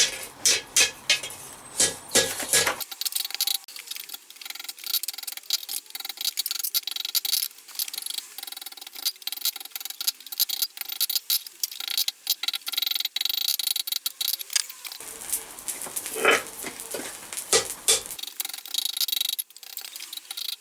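Blacksmith's hammer striking a 10 mm square steel bar on the anvil while forging a spiral scroll, in quick series of blows for the first few seconds and again about fifteen seconds in. In between, a dense, fast clattering with no low end.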